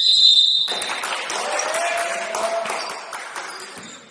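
A crowd of spectators clapping and cheering. It starts about three-quarters of a second in and fades away over the next three seconds, after a short high-pitched squeak at the very start.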